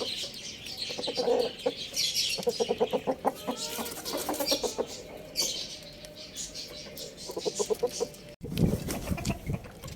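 Chickens clucking in quick runs of short notes, with higher chirps and squawks over them. About eight seconds in, the sound cuts abruptly to low thumps and rustling.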